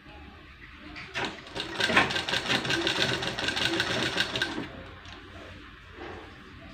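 Sewing machine running a short burst of stitching along a folded fabric piping strip, with a fast, even needle clatter. The burst starts about a second in and stops about two seconds before the end.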